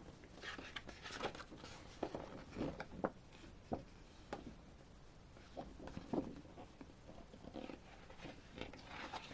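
Faint paper-handling sounds as a glossy photo booklet is paged through: scattered soft rustles and light taps.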